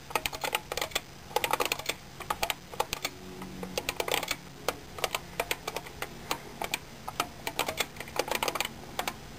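Typing on an IBM 5251 beam-spring keyboard: quick runs of clicky keystrokes in bursts, with short pauses between them.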